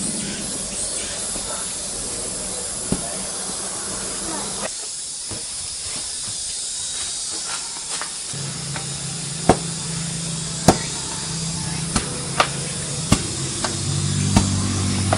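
Hollow concrete blocks being handled and set in place, giving sharp knocks and clicks that come several times in the second half, over a steady hiss. A low steady hum joins near the end.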